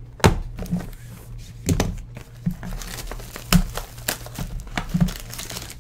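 Cardboard trading-card boxes being handled and opened: a series of short knocks and taps as a box is pulled from a stack, with some crinkling of its wrapping.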